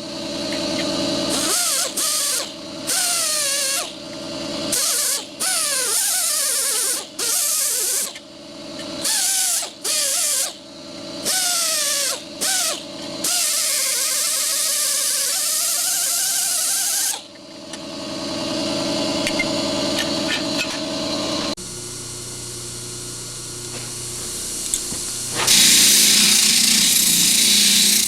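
Small electric power tool with a wire wheel, cleaning rust off small steel parts. It runs in many short bursts at first, its whine dipping and recovering as it bites into the metal, then runs steadily for a longer stretch, and a louder hiss comes in near the end.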